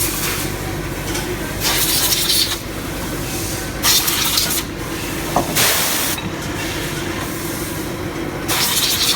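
Automatic chamfering machine running on aluminium LED heatsinks: a steady machine hum with short hissing bursts about every two seconds as it cycles.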